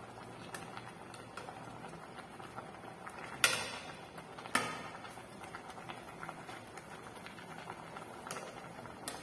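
A pot of sardine and spinach soup simmering with a soft bubbling and patter, while a long metal spoon stirs it. The spoon clinks sharply against the pot twice, about three and a half and four and a half seconds in.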